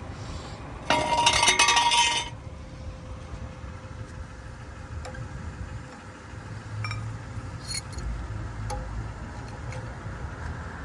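Metal tools or hardware clinking during strut mount work: a loud metallic rattle about a second in, lasting just over a second, then a few light clicks.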